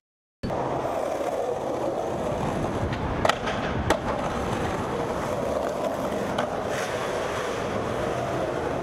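Skateboard wheels rolling on concrete with a steady rumble. About three seconds in, the board makes two sharp clacks as a trick is done on a ledge, and there are a couple of fainter knocks later.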